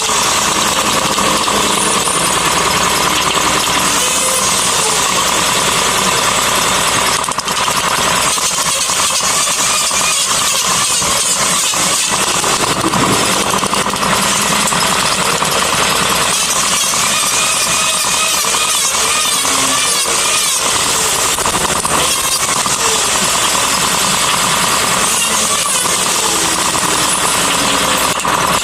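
A handheld power tool running steadily under load, working wood, with a hissing, grinding noise that wavers a little in pitch.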